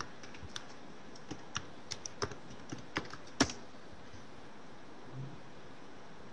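Computer keyboard typing: a run of separate keystrokes over about three and a half seconds, the last one the loudest.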